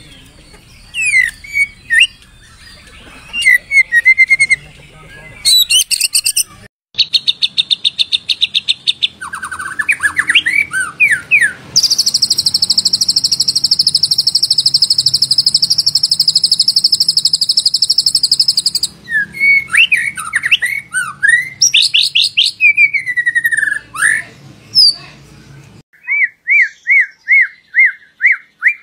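White-rumped shama (murai batu) song: varied loud whistled phrases that slide up and down, with a long fast buzzy rattle in the middle and a run of quick repeated notes near the end. The song is pieced together from recordings, with abrupt cuts between phrases.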